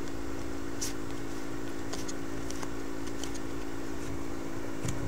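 A steady mechanical hum from a machine running in the room, with a few faint clicks of trading cards being flicked through a stack in the hand.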